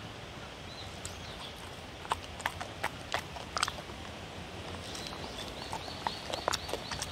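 A dog eating chopped vegetables and meat off a paper plate: irregular sharp clicks of chewing, coming in scattered clusters.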